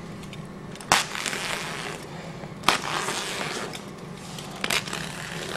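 A knife slicing through a coated woven polypropylene bag, with three sharp crackling rips about one, two and a half, and four and a half seconds in, and scratchy tearing between them.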